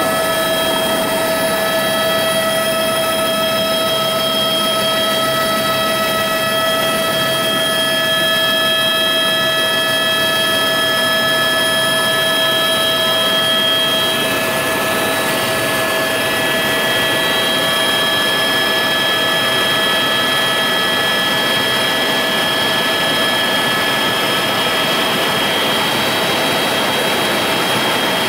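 A steady, loud engine drone with a constant whine riding on top, holding the same pitch throughout with no change in speed.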